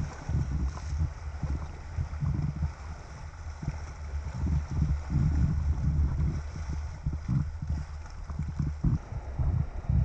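Wind buffeting the microphone in uneven gusts, over a fainter steady hiss of moving river water.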